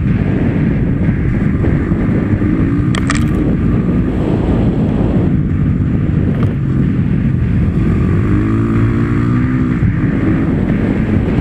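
Enduro dirt bike engine running under load, its pitch rising and falling as the throttle is worked, with wind buffeting the microphone. A brief sharp tick about three seconds in.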